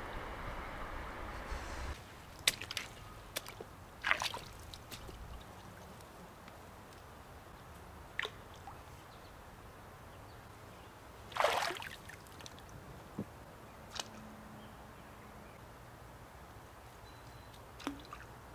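Water splashing and sloshing in a shallow creek, most likely from a man wading and moving a branch fishing rod. A steady wash of water fills the first couple of seconds, then come scattered short splashes and drips, the loudest a little past halfway.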